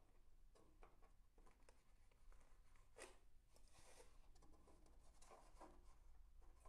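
Near silence with faint rubbing and light ticks as cord is wound by hand onto a Concept2 SkiErg spool.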